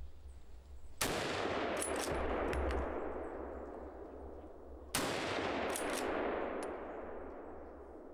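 Two hunting-rifle shots at wild boar, about four seconds apart, each followed by a long echo that rolls away through the forest over about three seconds. A few short clicks follow each shot.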